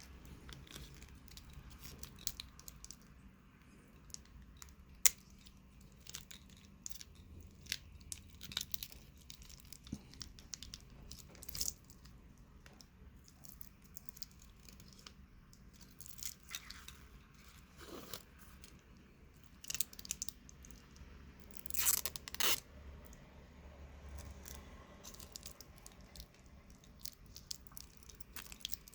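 Hands handling a wristwatch and its packaging: scattered light clicks, crinkles and rustles, with a louder cluster of rustling about two-thirds of the way through.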